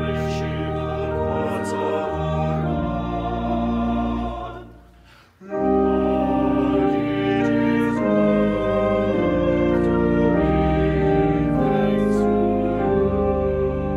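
Choir singing with church organ accompaniment, sustained chords under a sung line. The music breaks off for about a second near the middle, then the next phrase comes in louder.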